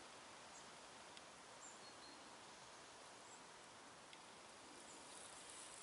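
Near silence: a faint, steady outdoor background hiss with a few brief, faint high chirps and one or two soft ticks.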